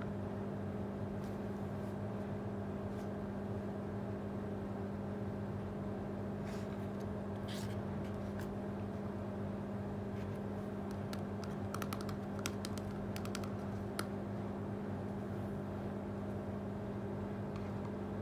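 Light clicks and taps of small plastic toy pieces being handled, scattered at first and then a quick run of clicks about two-thirds of the way through, over a steady low hum.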